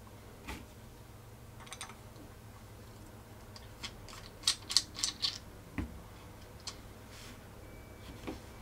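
Hands handling rangefinder binoculars and unscrewing the battery compartment cap: a few faint clicks, then a cluster of sharp small clicks and scrapes about four to five seconds in as the cap is twisted, and a soft knock shortly after.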